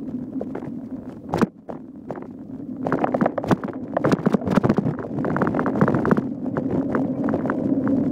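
Mountain bike rolling over bumpy trail: rattling and knocking of the bike, with tyre noise underneath. One hard knock comes about a second and a half in, and the rattling grows denser and louder from about three seconds in.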